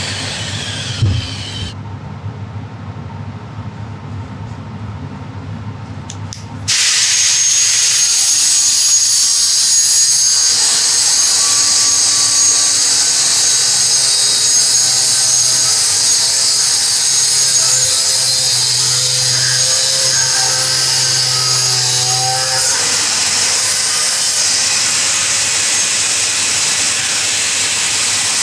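Angle grinder grinding a steel frame tube, starting abruptly about seven seconds in and then running steadily with a high whine over a hiss. Before it there is a quieter low hum.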